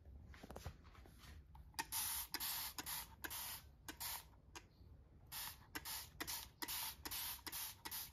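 Hand trigger spray bottle misting a houseplant's leaves: a run of short hissing squirts, about two or three a second, starting a couple of seconds in, with a brief pause midway.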